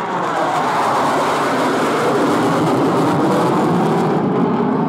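A pair of F-4 Phantom II fighter jets flying past, their J79 turbojets making a loud, steady jet rush. The pitch falls over the first couple of seconds as they go by.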